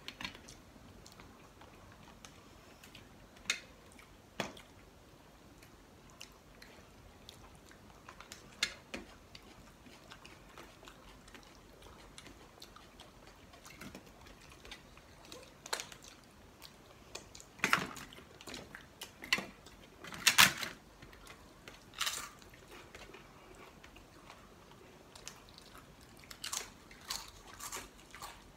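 Close-miked eating sounds of rajma chawal (kidney-bean curry with rice) eaten by hand: chewing and biting, with scattered short, sharp crunchy clicks, the loudest cluster about two-thirds of the way in.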